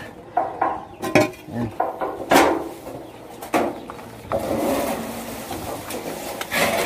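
Knocks and clatters from handling a wooden-framed wire-mesh chicken cage as it is opened, a handful of sharp hits with the loudest about two and a half seconds in, followed by rustling of the netting.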